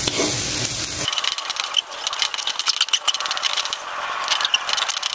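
Sweet corn, sausage and meatball pieces sizzling in a nonstick wok while a wooden spatula stirs them, with many quick scrapes and taps against the pan.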